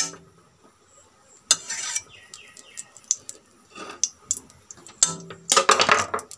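A spoon knocking and scraping on a hot kadai (wok) while a dollop of cow ghee goes in: scattered clinks and two short scrapes, the louder one near the end.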